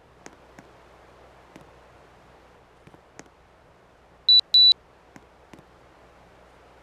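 An LG air conditioner unit gives two short, high electronic beeps in quick succession a little past the middle, with a few light clicks before and after over a faint steady hiss.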